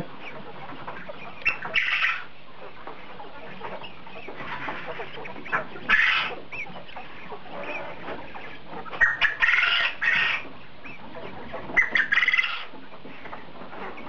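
A flock of young white quails calling in a wire cage: four loud bursts of shrill cries about 1.5 s, 6 s, 9 to 10 s and 12 s in, with quieter chirping between them.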